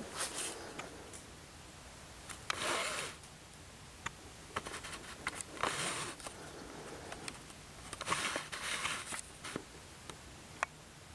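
Soft breaths close to the microphone, three of them about three seconds apart, with a few small clicks and scuffs of debris being stepped on.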